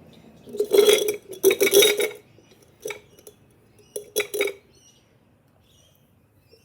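A utensil clattering and clinking against a bowl: two loud runs of knocks about a second in, a single knock, then a shorter clatter near the middle.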